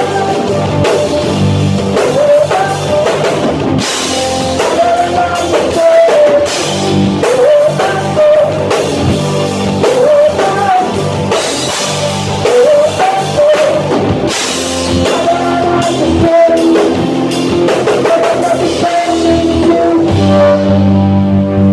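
Rock band playing loud and live: drum kit and electric guitar, with singing. Near the end the drums and cymbals stop and a low chord is held.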